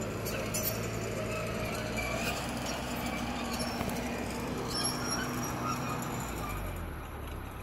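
Diesel engine of an International TD8G crawler dozer running steadily in the background, with a scattering of sharp crackles of brush and twigs close by.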